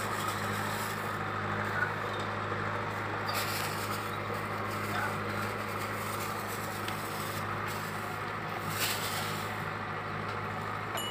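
Steady low mechanical hum, unchanging throughout, under a faint outdoor background with a few small brief noises.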